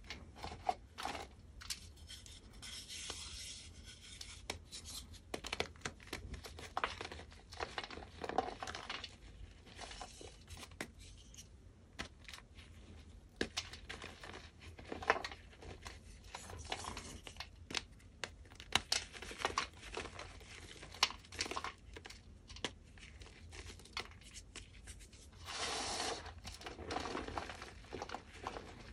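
A hand crushing and squeezing a soft, powdery block of dyed, reformed gym chalk, which crunches and crumbles apart. The crackles come unevenly throughout, with a longer run of continuous crunching near the end.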